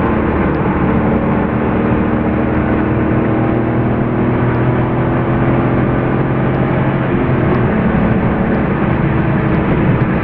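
Porsche 993 Carrera 4's air-cooled flat-six, fitted with a slightly freer exhaust, heard from inside the cabin pulling steadily at speed over tyre and wind noise. The engine note drops a little about seven seconds in.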